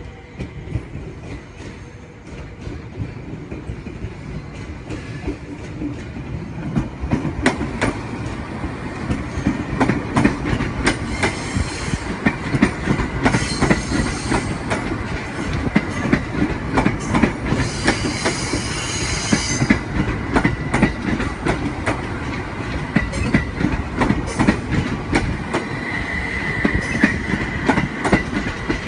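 A JR 701 series electric train rolls close by, growing louder over the first several seconds, its wheels clattering rapidly over the track. High wheel squeal comes twice around the middle, and a steady high tone shows near the end.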